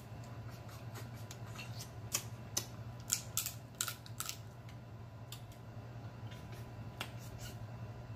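Close-miked eating of crab: scattered wet clicks and smacks of picking and chewing crab meat, thickest between about two and four and a half seconds in, over a steady low hum.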